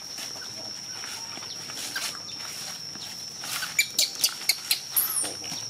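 Outdoor ambience with a steady high-pitched insect drone throughout. About four seconds in comes a quick run of sharp clicks and high chirps, with a short rising-and-falling high call near the end.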